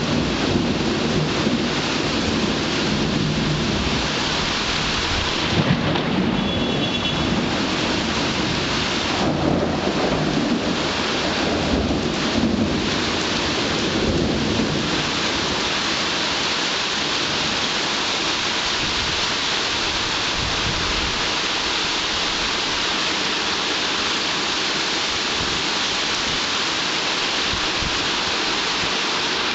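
Heavy rain falling steadily during a thunderstorm, with a long low rumble of thunder through the first half that fades out about midway.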